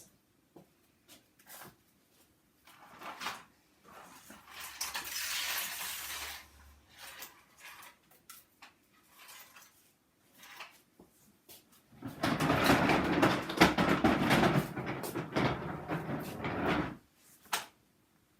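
Rummaging through a bag of vacuum-cleaner attachments: scattered plastic clicks and knocks, with a louder stretch of rustling and clattering that starts about two-thirds of the way in and lasts around five seconds.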